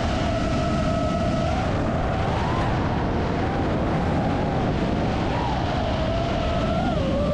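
FPV freestyle quadcopter's brushless motors (iFlight Cyber Xing 2207.5 1777kv) whining under a heavy rush of wind and prop wash, heard from the drone's own camera. The whine holds steady for a second or so, then rises and dips as the throttle changes.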